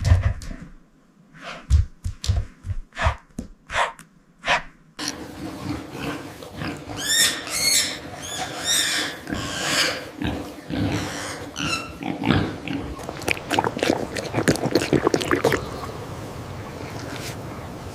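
Pigs grunting and snorting in short sharp bursts, then a busier stretch with higher-pitched squeals a few seconds in.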